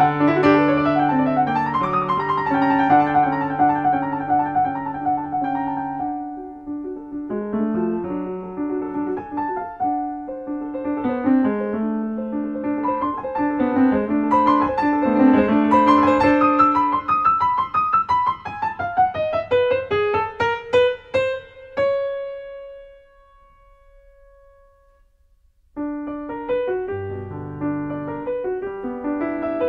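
Background piano music, a gentle melody of single notes over chords. It breaks off for a few seconds near the end, then starts again.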